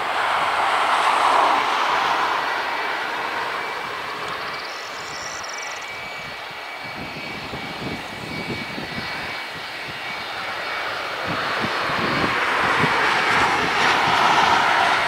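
Boeing 757-28A freighter's jet engines running at taxi power as it rolls along the runway: a steady rush with a faint whine. It eases off in the middle and grows louder again near the end.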